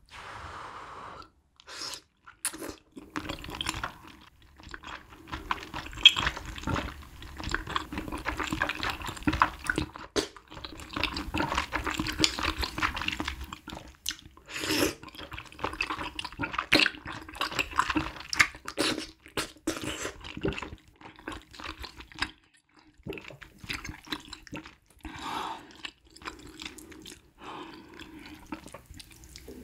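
Close-miked wet eating sounds: slurping thick, chewy sweet-potato glass noodles and spicy broth, with irregular smacking and chewing clicks. The sounds are densest for most of the time and thin out toward the end.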